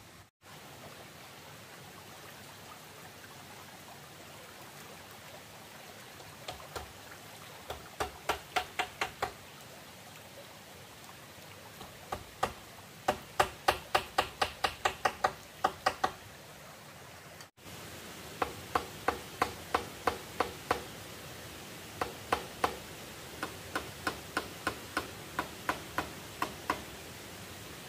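Hammer knocking on a bamboo gate post in quick runs of blows, about four a second, with pauses between runs, over a steady background hiss.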